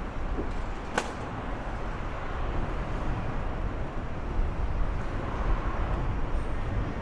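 Steady low rumble of city vehicles in the distance, with one sharp click about a second in.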